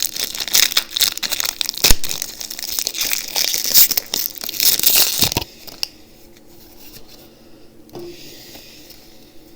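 Foil Pokémon booster pack wrapper being torn open and crinkled: a dense, loud crackle of tearing for about five and a half seconds, then stopping suddenly and giving way to faint rustling handling.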